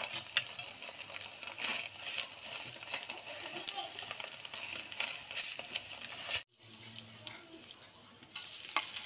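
A roti sizzling and crackling in oil on a hot tawa, with a metal spatula pressing, tapping and scraping on it. The sound drops out abruptly for a moment about six and a half seconds in.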